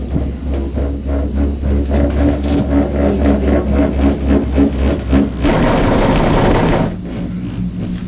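Cable car cabin riding along its cable: a steady low hum with quick rattling clicks, a louder rushing clatter from about five and a half to seven seconds in, then a quieter, steadier hum.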